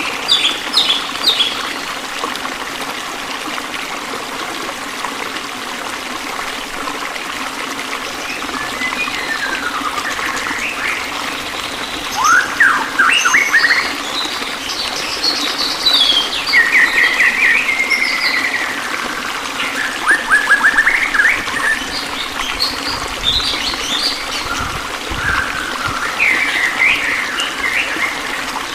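Songbirds chirping and singing in scattered bursts of quick calls, over a steady trickle of running water.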